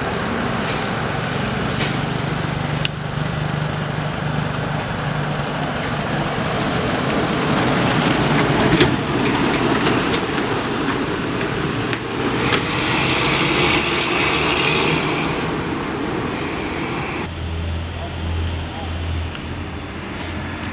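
Heavy three-axle diesel flatbed truck driving through a bend and passing close by, its engine running under load and growing louder as it goes past, followed by a few seconds of hissing.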